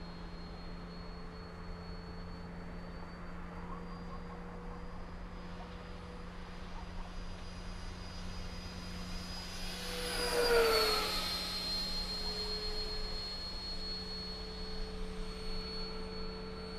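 70 mm ten-blade electric ducted fan of a small RC F-22 Raptor jet whining steadily in flight. About ten seconds in it makes a close pass: the whine grows loudest and then drops in pitch as the jet moves away.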